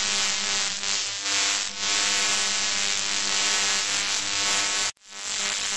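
Loud electrical buzzing sound effect: a steady humming buzz under a crackling static hiss, standing for the galvanic current from the electrodes. It cuts out for an instant near the end and comes back.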